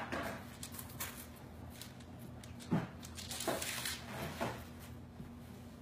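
Faint rustling and a few soft knocks of hands smoothing and pressing a sheet of fondant down over a cake on a paper-lined board.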